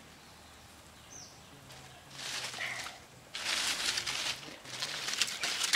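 Crackling hiss from a clay pot of banana malluma cooking over a wood fire, coming in surges from about two seconds in. A faint bird chirp sounds about a second in.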